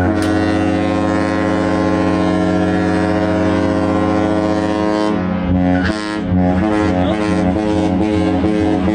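A large ship's horn sounds a loud, deep, steady blast rich in overtones. About five seconds in, the sound breaks into a run of short notes that keep shifting in pitch.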